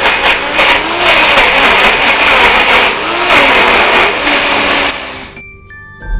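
NutriBullet personal blender running loud and steady, its motor and blade churning a thick smoothie with frozen spinach; the owner fears the blender is on its last leg. The sound fades away about five seconds in.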